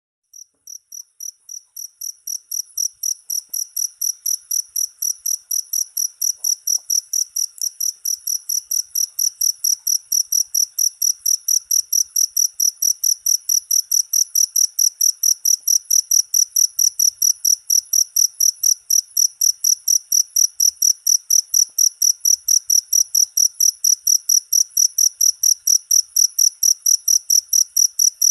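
A cricket chirping in a fast, even rhythm of about four to five high chirps a second. It fades in over the first few seconds, then holds steady.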